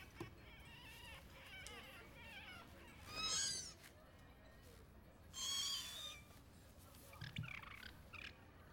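High-pitched, wavering squeaky cries from a cartoon creature sound effect. Two louder cries come about three and five and a half seconds in, with softer ones before and after and a low thud near the end.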